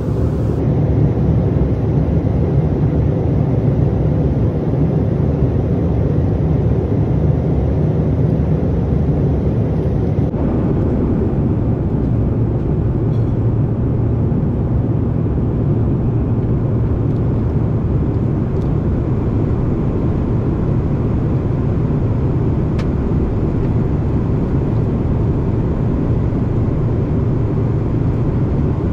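Cabin noise of a Bombardier CRJ-900 airliner in flight: a steady low drone of its rear-mounted turbofans and the airflow past the fuselage, fading in at the start and then holding even.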